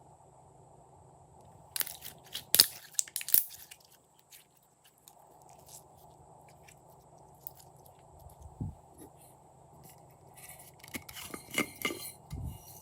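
Glossy slime being squished and worked by hand, giving bursts of sticky crackles and pops, about two seconds in and again near the end.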